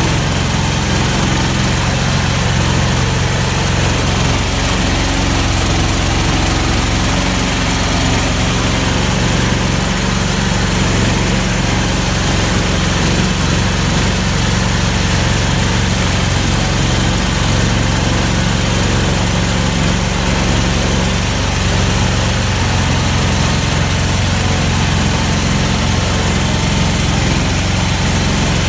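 Engine of an all-terrain vehicle on low-pressure tyres running steadily under load as it drives, heard from on board.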